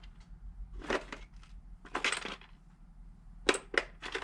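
Small TIG torch parts clicking and clinking as they are pulled off and handled, with a few short sharp clicks spread through the few seconds.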